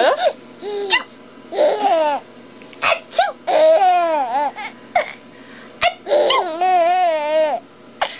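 Baby laughing in a series of high-pitched, bubbling bursts, with one long drawn-out laugh near the end. A few short sharp clicks fall between the laughs.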